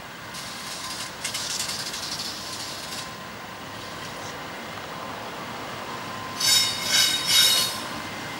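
Diesel locomotives 6010, 6022 and 6044 rolling slowly with high-pitched wheel squeal: a squealing stretch in the first few seconds, then three loud squeals in quick succession near the end.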